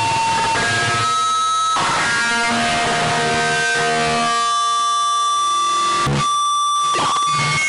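Loud, discordant electronic sound-effect music: several sustained tones that shift every second or so over a noisy hiss, with abrupt changes and a short break about six seconds in.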